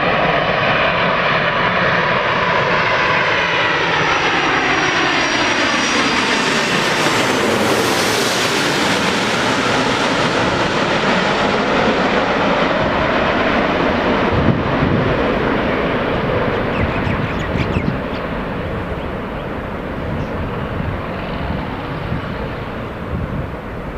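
Jet airliner on landing approach passing close by. Its engine roar sweeps down and back up in pitch as it goes over, about a third of the way in, then slowly fades away in the last third.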